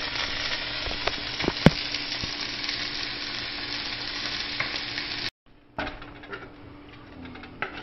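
Chicken drumsticks sizzling as they fry in butter in a pot: a steady sizzle with a few light clicks. It cuts off abruptly about five seconds in and comes back much quieter.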